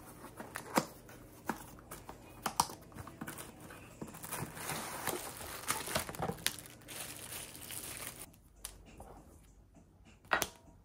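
Unpacking by hand: a cardboard box being opened and plastic wrapping crinkling, with scattered light clicks and taps. The crinkling is densest from about four to eight seconds in, and a sharper knock comes near the end.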